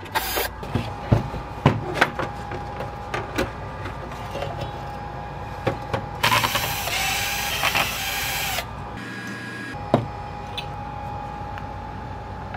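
Clicks and knocks of screws and metal case parts being handled while a NAS enclosure is taken apart, with a cordless drill-driver running for about two seconds some six seconds in.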